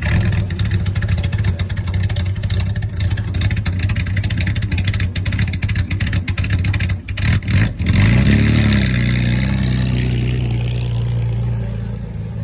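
Historic racing car engines running loud and rough. About eight seconds in, one engine revs up in pitch, then holds a steady note that slowly fades as the car draws away.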